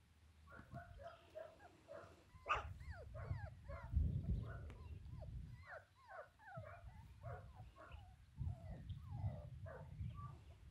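German shorthaired pointer puppies woofing with many short, high, sliding calls in quick succession. A few low rumbles, the loudest near the middle, lie under them.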